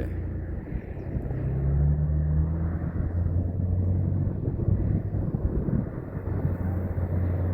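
A vehicle's engine and road noise heard from inside the cab while driving: a steady, low drone, its pitch rising briefly a second or so in.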